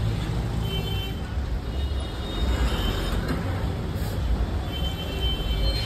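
Road traffic in a jam: vehicle engines, buses among them, running at a low, steady rumble, with a faint high tone that comes and goes.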